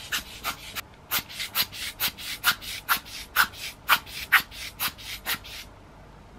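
Dust being cleaned out of the open film chamber of an Alpen-M camera: quick hissing strokes, about three a second, stopping about five and a half seconds in.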